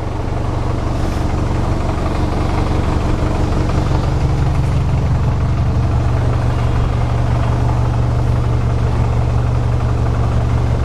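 Volkswagen Mk7 GTI's 2.0-litre turbocharged four-cylinder engine idling steadily.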